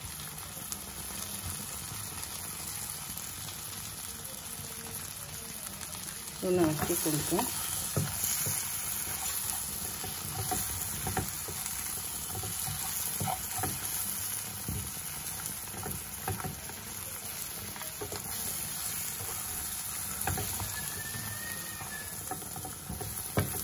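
Large prawns frying in butter, oil and garlic in a pan, a steady sizzle. From about six seconds in, a spatula scrapes and knocks against the pan as the prawns are turned.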